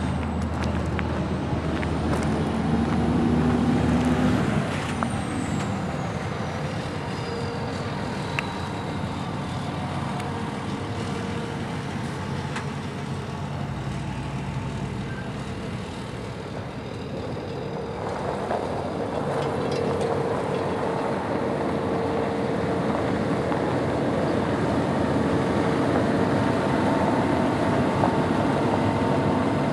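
Semi truck's Cummins ISX inline-six diesel engine running steadily, with a high whine falling in pitch over the first ten seconds. From about two-thirds of the way through it grows louder and settles into a close, steady idle.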